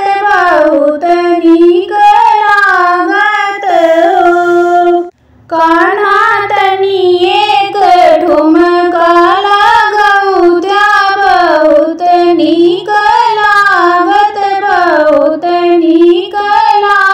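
A woman singing a Sohar, a north Indian folk birth song, solo in a high voice with a wavering, ornamented melody. The line breaks briefly about five seconds in, then carries on.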